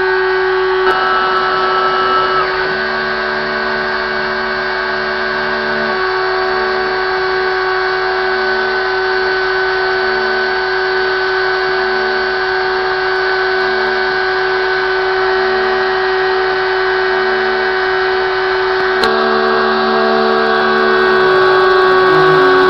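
Stepcraft 600 CNC router's spindle running steadily with a 3 mm end mill cutting the PCB's border outline, the second, deeper pass. Under the steady whine the stepper motors hum in a repeating on-off pattern as the machine moves along the cut.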